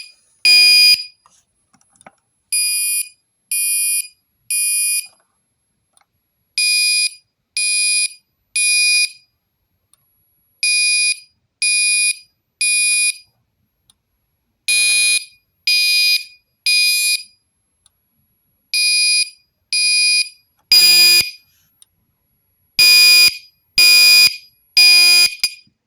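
Gentex Commander 3 fire alarm horn sounding the temporal code-3 evacuation pattern: three short, shrill electronic blasts about a second apart, then a pause, repeating about every four seconds. It is extremely loud.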